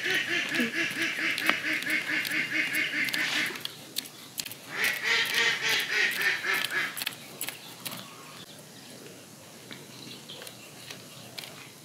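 A duck quacking in a rapid series, about four quacks a second, in two runs of roughly three seconds each. Under and after them come light scraping clicks of fish being scaled and cut on a boti blade.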